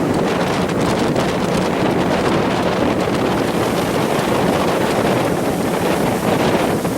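Strong wind blowing across the microphone in a snowstorm, a loud, steady rushing noise.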